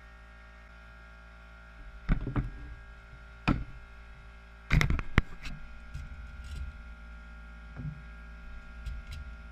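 Knocks and clunks of a steel fog-lamp bracket and wooden blocks being set down and shifted on a wooden floor, a cluster about two seconds in, a single knock near three and a half seconds, and the loudest few around five seconds. A faint steady hum runs underneath.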